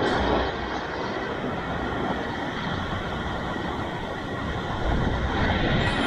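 Sea waves washing and breaking on a rocky shore: a steady rush of surf that swells a little near the end.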